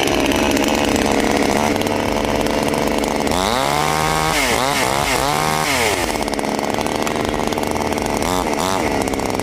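Cheap chainsaw running steadily, then revved up and back down about three times in the middle and blipped twice briefly near the end.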